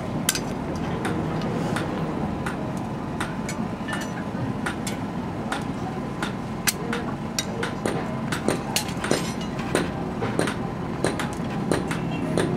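Light hammer taps on metal at an irregular pace, several a second at times, over a steady low machine hum.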